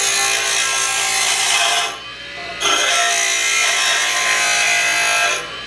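Jet 8-inch bench grinder with a 1 hp motor grinding a metal rod: a harsh, loud grinding over the motor's steady hum. The rod is lifted off briefly about two seconds in, then a second pass runs until shortly before the end. The wheel keeps its speed under the load.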